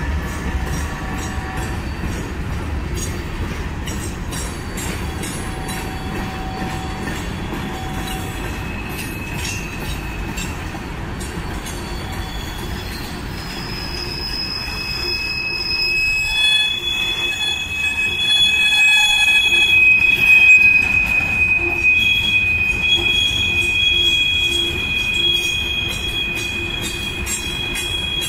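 Freight train cars rolling past with the wheels squealing against the rail in several high, steady tones over a rumble and a fast clicking of wheels on the track. The squeal is strongest in the second half.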